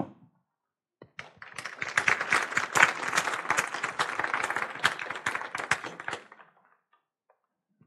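Audience applauding. The clapping starts about a second in, holds for about five seconds and dies away.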